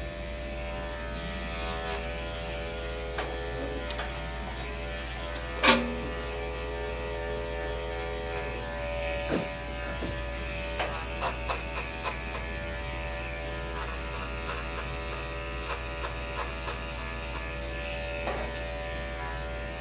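Electric dog-grooming clippers with a No. 7 blade, run against the grain through thick, soft coat, running steadily. A sharp knock comes about six seconds in, and a few lighter clicks come around eleven to twelve seconds.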